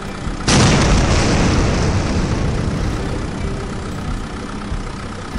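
An explosion sound effect for a rocket strike: a sudden loud blast about half a second in that slowly dies away over a few seconds, over a steady engine idling hum.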